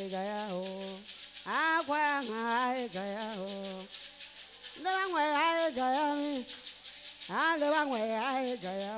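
A woman singing a worship song in a Liberian dialect, in three phrases that each swoop up at the start, about one and a half, five and seven and a half seconds in, over the steady shaking of gourd rattles.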